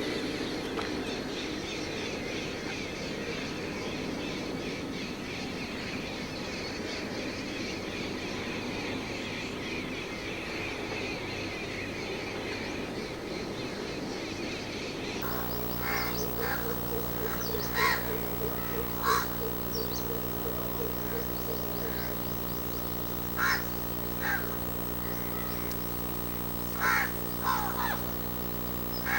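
Birds giving short, sharp, harsh calls, singly or in quick pairs, over a steady low hum, with a dense wash of background noise before the calls start about halfway through.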